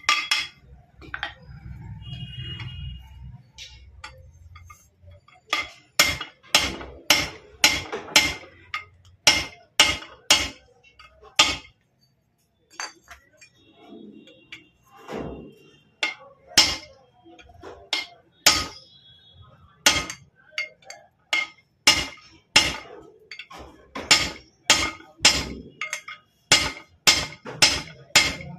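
Hammer striking metal to drive a bearing into a motorcycle gearbox, in steady runs of sharp metallic blows, two to three a second, with a pause of a few seconds near the middle.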